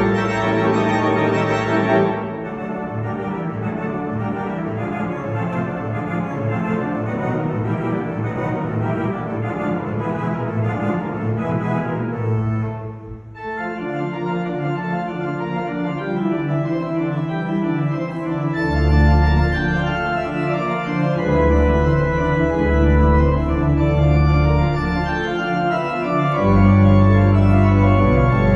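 Church organ playing slow, sustained chords. The music breaks off briefly about halfway through, then resumes, with deep pedal bass notes coming in later.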